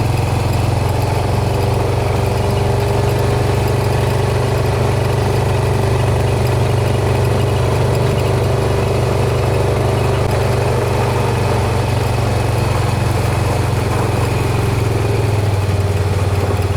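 A vehicle engine running at a steady, unchanging speed, a loud low drone.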